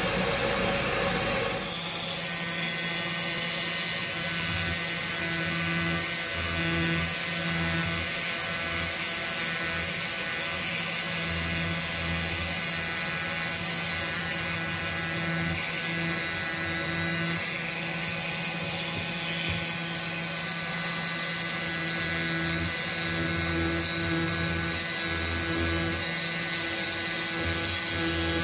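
Pneumatic air pen (air scribe) buzzing as it chips rock matrix from a Dactylioceras tenuicostatum ammonite, starting about two seconds in. A steady high whine runs under a lower buzz that repeatedly comes and goes as the pen is worked on and off the stone.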